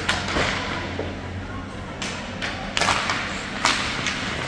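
Ice hockey sticks and puck clacking on the ice during a faceoff and the play that follows: four sharp strikes spread over the few seconds, over a murmur of spectators' voices.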